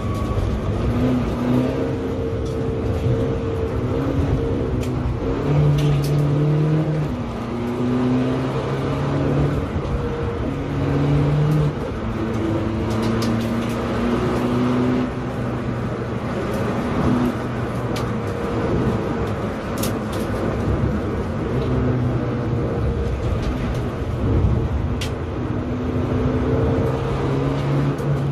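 SEAT Ibiza TDI's turbodiesel engine heard from inside the cabin while being driven hard on a circuit, its note holding and then jumping to a new pitch again and again as the car accelerates, over steady road and tyre rumble. A few sharp ticks sound now and then.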